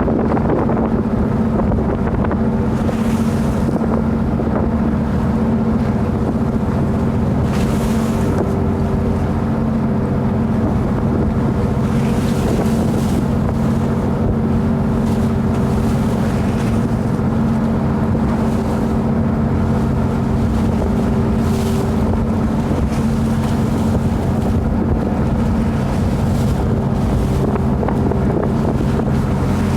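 A boat's engine running steadily at a constant pitch, with wind buffeting the microphone and a few brief hissing swells of water.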